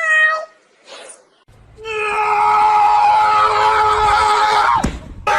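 Cat meowing: a short meow, then a long drawn-out cry held at a steady pitch for about three seconds before it breaks off near the end.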